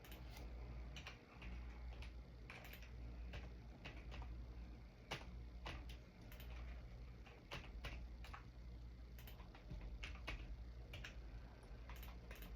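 Sparse, irregular computer keyboard typing: faint single key clicks, a few each second with uneven gaps, over a low steady hum.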